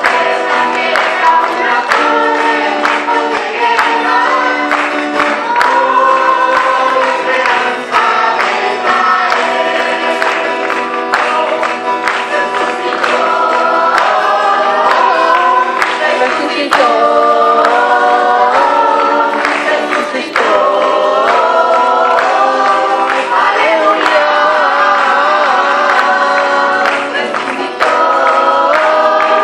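Church choir singing a Christian worship song in harmony, with sustained chords and moving melody lines.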